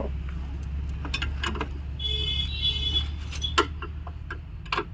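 Metal tools clinking against the Tata Tiago's front suspension as the worn stabilizer link is unbolted: several sharp clinks, with a brief high squeal about two seconds in, over a steady low hum.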